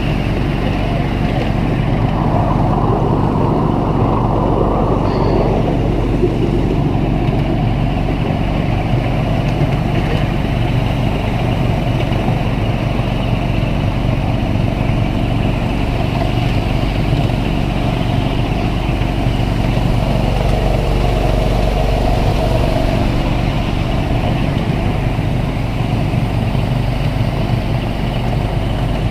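Miniature railway train running along its track, heard from one of its passenger cars: a steady, unbroken low rumble of the locomotive and wheels.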